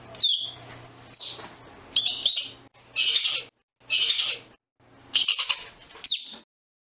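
Arctic ground squirrel calling: short, sharp, high chirps that drop in pitch, alternating with harsh, raspy chatter calls, about one a second. A quicker rattling chatter comes about five seconds in.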